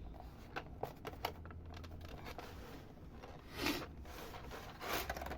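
Handling noise from a keycap box being opened and its plastic packing handled: rustling and scraping with scattered light clicks, and a couple of louder rustles about three and a half seconds in and near the end.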